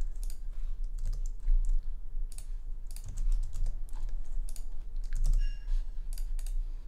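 Typing on a computer keyboard: irregular keystrokes and clicks over a steady low hum.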